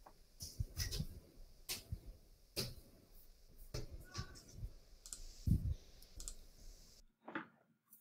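Irregular clicking of a computer keyboard and mouse, about a dozen sharp clicks at uneven intervals, stopping near the end.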